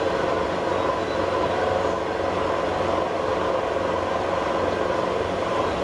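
Heavy machine-shop machinery running with a loud, steady drone and several steady hums layered over it.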